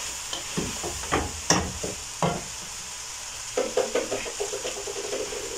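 Rice and chopped vegetables being stirred in a pot over the heat: a steady sizzle of frying under scattered scraping knocks, then a quick run of short scrapes in the last couple of seconds.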